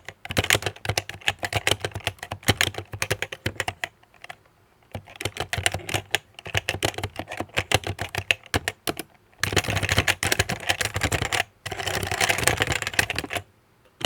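Typing on a Happy Hacking Keyboard with Topre switches: runs of keystrokes with a few short pauses, turning into fast, dense typing in the second half.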